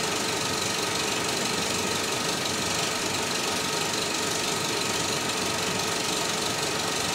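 Steady, dense crackling static noise with a few faint steady tones underneath, like a sound-design bed of TV or film static.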